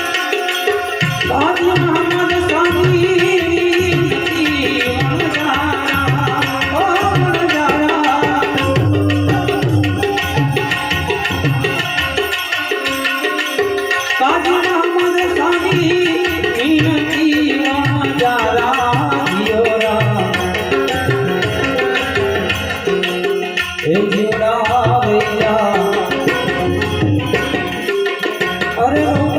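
Instrumental interlude of a Gujarati santvani bhajan: tabla playing a steady rhythm under a melody line. The melody slides upward at a few points.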